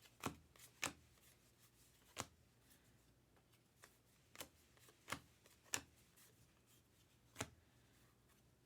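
Trading cards being flipped one at a time through a stack in the hands: faint, separate card snaps, about seven, irregularly spaced.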